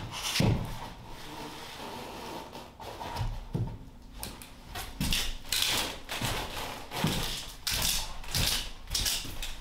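Scattered wooden knocks and scrapes as shiplapped pine floorboards are shifted and set into place on a subfloor, then a run of sharper scuffs and footsteps from about five seconds in as a board is carried across the floor.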